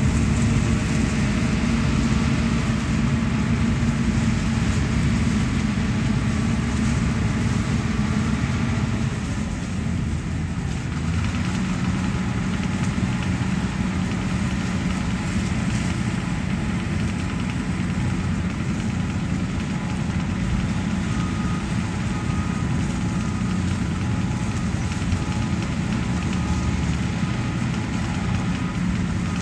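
Diesel farm tractor engine running steadily, its note dipping briefly about ten seconds in and then holding steady again.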